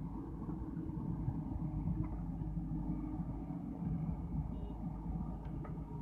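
JCB backhoe loader's diesel engine running steadily as the backhoe bucket digs into the soil, with a few faint clicks near the end.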